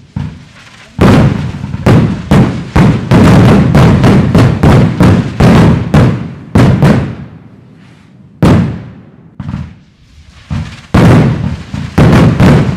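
Aerial fireworks bursting with loud, sharp bangs in rapid succession. A dense volley starts about a second in, then comes a brief lull with a couple of single bangs, and another quick run near the end.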